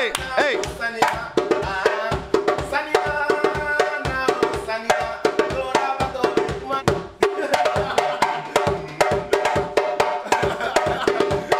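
West African drumming: a djembe-style hand drum beaten with the hands alongside a talking drum struck with a curved stick, in a fast, dense rhythm. Pitched tones bend up and down over the strikes.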